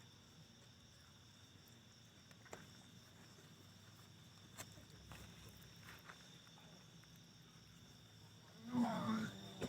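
A short, loud, tiger-like growl about nine seconds in, over a faint, steady high-pitched night hum with a few soft clicks.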